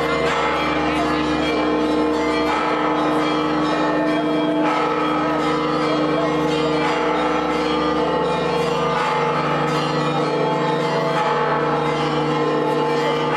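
Church bells ringing without a break, several tones overlapping, with a crowd's voices beneath.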